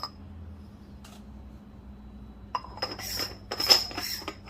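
Coffee grounds being tipped and knocked out of a hand grinder's metal catch cup into a pour-over dripper. After a quiet stretch, there is a quick cluster of light, ringing clinks and taps starting a little past halfway through.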